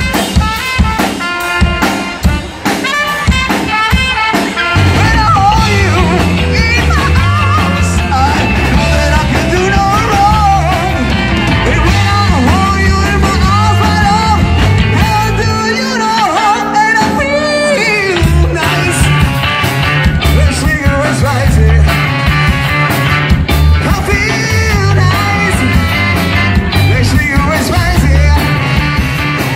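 Live rock band with singer, electric guitars, bass guitar, drum kit, trumpet and saxophone playing a soul-rock song. The playing is sparser for the first few seconds, the full band comes in about five seconds in, and the bass and drums drop out for a short break a little past halfway before the full band returns.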